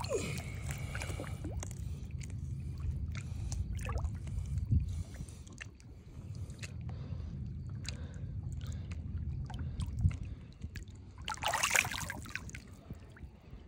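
Water sloshing and trickling around a hand holding a striped bass in shallow water as it is released, with a louder splash near the end as the fish kicks free.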